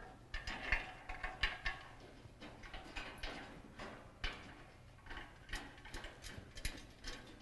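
Light metallic clicks and scrapes of bolts, washers and nuts being threaded finger-tight into the steel frame of an American Forge and Foundry 990 workbench as a shelf is fitted, coming irregularly with a little ringing.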